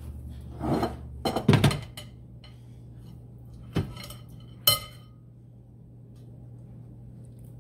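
Stainless steel steamer strainer and cooking pot being handled: a few knocks and clatter in the first two seconds, then two sharp metal clinks near the middle, the last ringing briefly, over a low steady hum.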